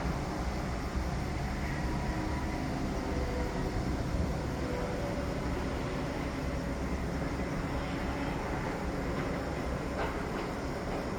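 Construction-site machinery running, a steady low rumble with faint wavering tones over it and a faint knock about ten seconds in.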